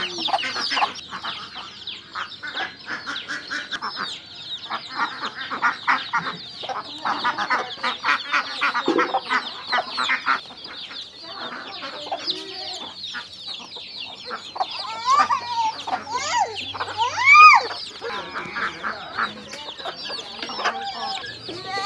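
A desi hen clucking in quick runs of short pulses while her chicks peep constantly. A few louder rising-and-falling calls come about fifteen to seventeen seconds in.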